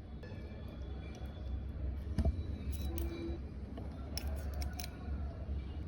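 A few sharp, light clicks over a low steady rumble: one louder click about two seconds in, then a quick run of clicks between about four and five seconds.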